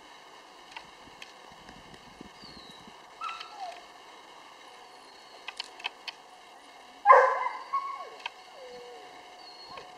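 A dog barks once, loud and sharp, about seven seconds in. A few small ticks and faint high chirps sound before it.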